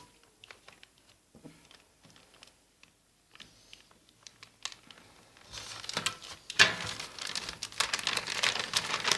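A delivery package being cut open with a cutter knife: a few faint scratches and clicks, then, from about five and a half seconds in, louder crinkling and tearing of the packaging as it is pulled open.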